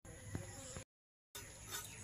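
Faint background with one light knock shortly after the start, broken by about half a second of complete silence at an edit. Faint repeated chirps begin near the end.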